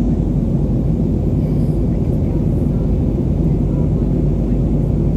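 Steady cabin noise inside an Airbus A320neo in flight: the low, even rumble of its CFM LEAP-1A turbofans at climb power mixed with airflow over the fuselage.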